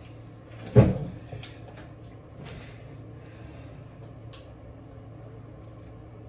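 A single sharp knock about a second in, then faint clicks and rustles of hands working a small plastic contact lens case, over a steady low hum.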